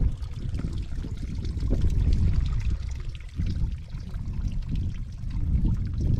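Wind buffeting the microphone in an uneven low rumble, over a trickle of running water from a small moorland stream.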